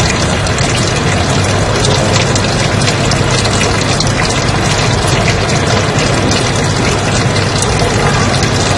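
Steady white noise: an even, unbroken hiss that does not change.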